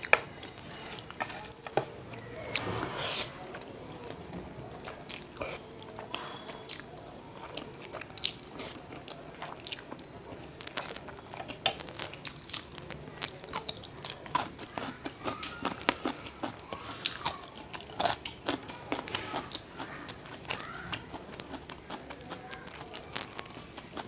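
Close-miked eating: chewing and crunching, with a steady scatter of sharp wet clicks from the mouth and a louder rushing stretch a few seconds in.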